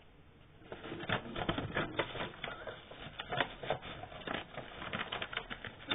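Folded paper airplane rustling and crinkling as it is handled, with quick irregular crackles and clicks starting about a second in.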